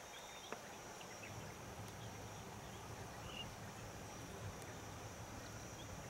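Quiet open-country ambience: a steady, faint, high-pitched insect drone over a low rumble, with one small tick about half a second in.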